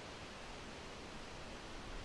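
Steady wind, an even rushing hiss without gusts.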